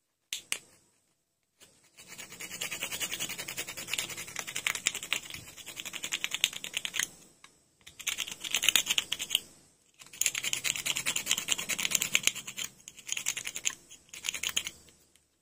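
A thin pointed tool scraping rubbery glue out of an LED bulb's heatsink housing in quick rasping strokes. The scraping comes in four bouts with brief pauses between them. The glue is being cleared so thermal paste can go in its place.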